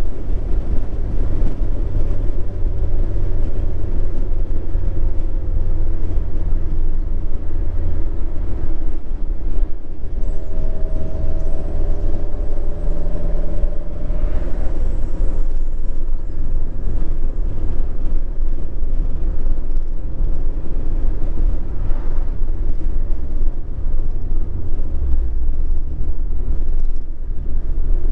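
2023 Mazda MX-5 Miata 2.0 L four-cylinder with a Skunk2 Alpha 4-1 header and Remark cat-back exhaust, cruising at a steady pace: a continuous low exhaust rumble heard from the open cabin with the top down. Around the middle a few brief higher tones rise over the rumble.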